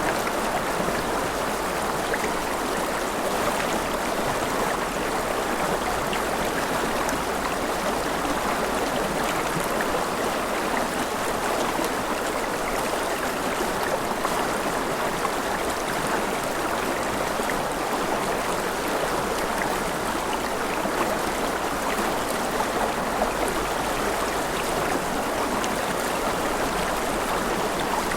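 Mountain river rushing over rapids: a steady, even wash of flowing water with fine splashing and gurgling.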